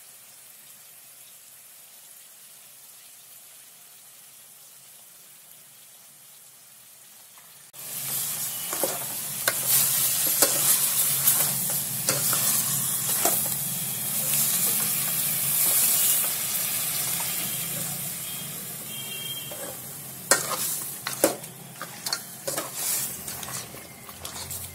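Goat head meat frying in oil in a metal pot, sizzling, while a steel ladle stirs and scrapes it with sharp knocks against the pot. The sizzle starts suddenly about eight seconds in after a faint hiss, and the ladle knocks grow sharper near the end.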